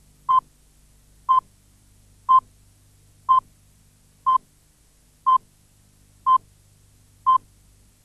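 Countdown-leader beeps at the head of an old video tape: a short, single-pitched beep once every second, eight times, with a faint low hum between them.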